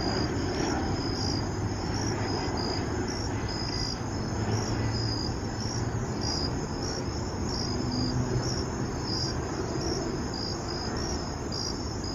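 Crickets chirping steadily, a few short high chirps a second in an even rhythm, over a low steady background rumble.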